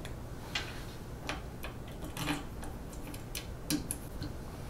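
Faint, irregular small metal clicks and ticks as screws are fed through and turned in by hand to mount a hot end on a 3D printer's carriage.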